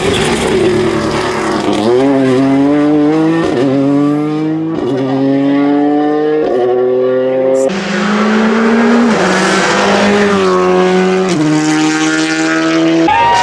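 Rally car engine accelerating hard through the gears, its note climbing and then dropping at each upshift, about six shifts in all. A hissing rush joins the engine about eight seconds in.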